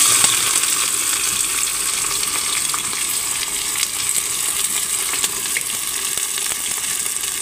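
Sliced onions dropped into hot mustard oil in a pressure cooker, sizzling at once with a sudden loud hiss that settles into a steady frying hiss with small crackles.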